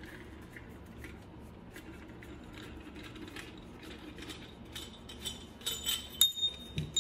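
Metal suppressor baffles and tube clinking and tapping together as they are handled. Faint scattered taps at first, then a flurry of sharper clinks about five and a half seconds in, the loudest a single ringing clink just after six seconds.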